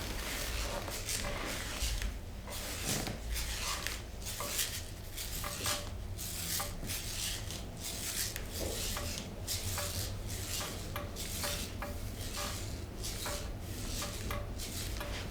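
Hands rubbing and kneading over the body during a massage: a quick, irregular run of rubbing and scraping strokes on skin and fabric.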